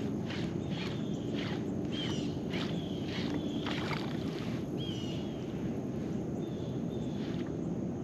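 Fishing kayak on the water, with regular light knocks about two to three times a second and a steady low wash of water noise. Short high chirps sound over it a few times.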